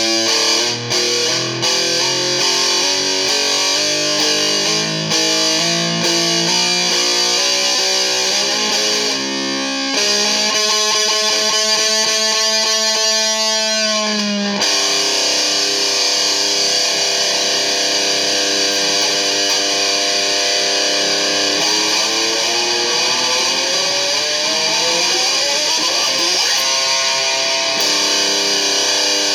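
Electric guitar played through distortion and effects: a run of changing notes, then a held note that cuts off suddenly about halfway through. Long sustained notes follow, with a slow rising glide in pitch near the end.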